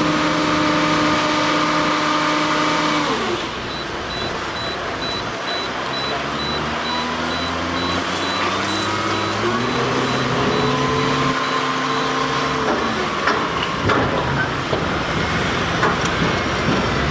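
Heavy logging truck's diesel engine running: revs held steady, then fall about three seconds in, climb slowly for several seconds, drop again near the end, and start rising once more.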